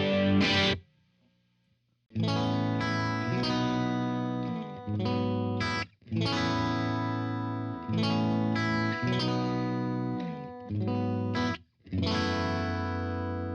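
Electric guitar played through a Blackstar Studio 10 6L6 valve amp with some distortion: chords struck and left to ring, several cut off abruptly, after a brief pause about a second in. The last chord rings out near the end.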